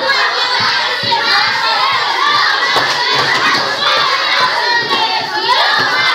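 A large group of children shouting and cheering together, loud and continuous.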